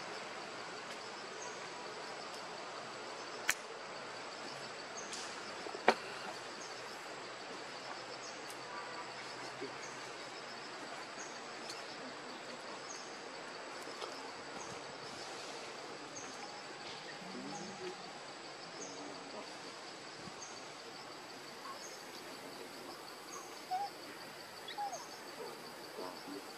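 Outdoor forest ambience: a steady high insect drone with a short high chirp repeating about once a second. Two sharp clicks stand out a few seconds in, and a couple of faint short calls come near the end.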